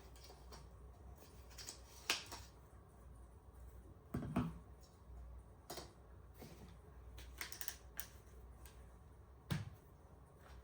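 Camera gear being handled on a table: a handful of separate sharp clicks and light knocks, with the loudest about two seconds in and again a little past the middle.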